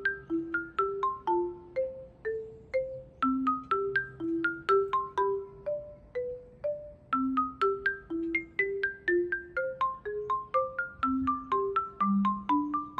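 Background music: a light marimba-like mallet melody over a plucked bass line, several notes a second.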